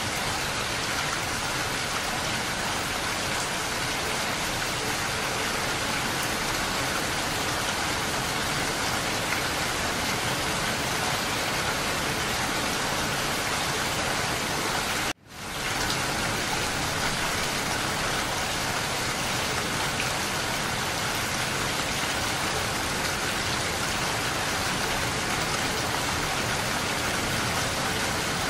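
Steady rain on a window pane, an even hiss of many drops. About halfway through it cuts out for a moment and fades quickly back in.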